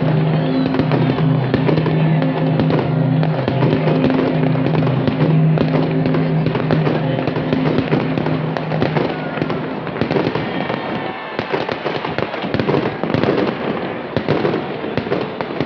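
Many fireworks crackling and banging in quick, irregular succession. Held music chords run underneath and stop about ten seconds in, leaving only the fireworks.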